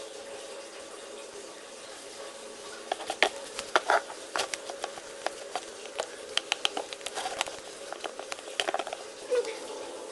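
Glue-based slime being stirred in a plastic container, giving irregular sticky clicks and pops that begin about three seconds in, over a faint steady hum.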